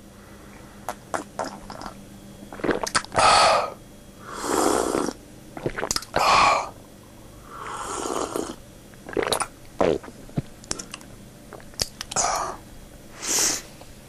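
A person drinking noisily from a mug: a series of short slurps, gulps and breaths, about seven bursts, each under a second.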